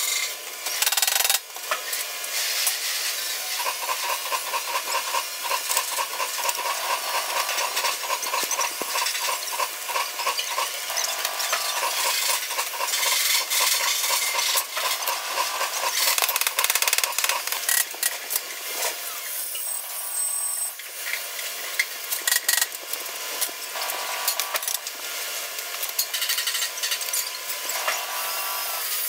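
Busy metal-workshop noise: tools scraping and clattering against sheet metal, with many sharp clicks and a fast, regular ticking through much of the first half.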